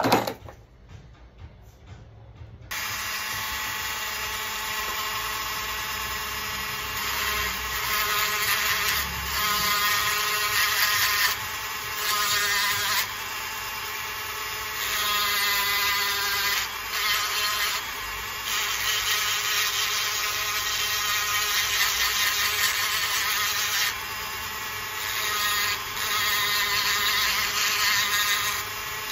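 A brief knock at the start, then from about three seconds in a handheld rotary tool runs with a steady high whine, its pitch and loudness shifting as the burr cuts grooves into a coconut shell.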